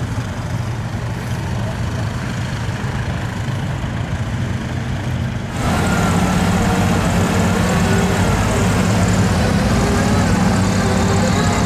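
A Honda ATV's engine running steadily in mud. About halfway through it gives way suddenly to a louder, steady big SUV engine driving through a flooded mud pit, with water and mud splashing.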